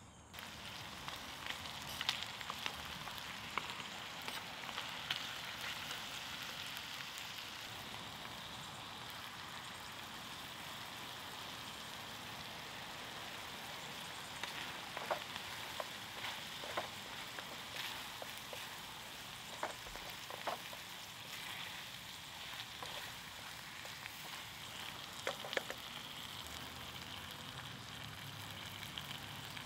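Ground beef, potatoes and tomatoes sizzling in a pan over campfire embers: a steady frying hiss that starts about half a second in, with a few sharp clicks scattered through it.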